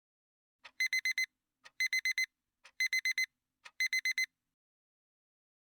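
Digital alarm-clock beeping: four short groups of four rapid high-pitched beeps, one group about every second.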